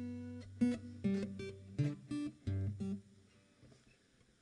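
Viola caipira (Brazilian ten-string folk guitar) played solo: a short phrase of plucked notes and chords that ends about three seconds in, the last note ringing away.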